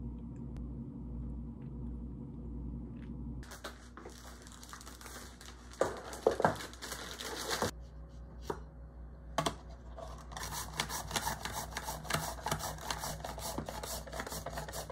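A cucumber being cut on a wooden cutting board, starting about three seconds in: a knife and a handheld julienne slicer make quick, repeated scraping and clicking strokes, several a second. There is a short lull with a few single clicks about halfway through, then a fast run of slicer strokes at the end.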